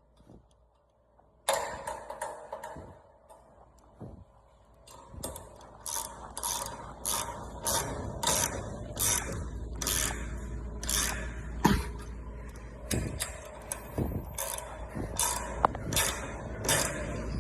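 Garage door spring mechanism ratcheting, with regular metallic clicks about two a second over a low rumble, starting suddenly after a moment of quiet, with a couple of louder knocks among the clicks.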